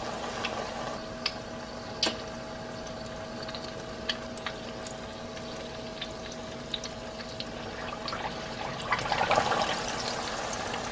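Battered corn dogs deep-frying in oil at about 350 °F: a steady bubbling hiss with scattered sharp crackles and pops. The bubbling grows louder near the end as a second battered corn dog is lowered into the oil.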